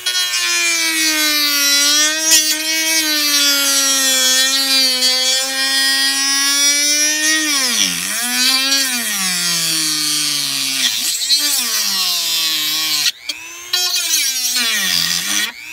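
Dremel rotary tool with a cutting bit whining at high speed as it cuts through aluminum sheet and the board beneath. Its pitch sags sharply and climbs back a few times as the wheel bites into the cut.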